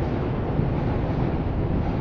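Wind buffeting an outdoor microphone: a steady, low rumbling rush.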